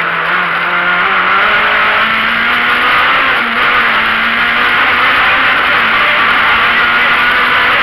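Peugeot 205 Rallye rally car heard from inside, its engine held at high revs under hard acceleration. The engine note climbs over the first couple of seconds and then holds steady, under a loud rushing noise.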